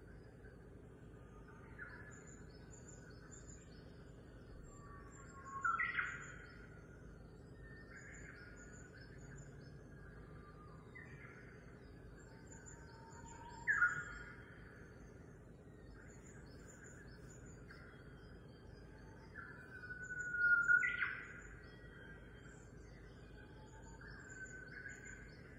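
Birds chirping and calling: faint high twittering throughout, with three louder calls, each a quick upward sweep, several seconds apart.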